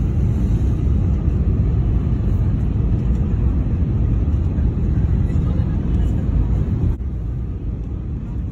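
Steady low rumble of an airliner's engines and rushing air heard inside the cabin as the plane descends to land. The level drops a little and the sound changes slightly about seven seconds in.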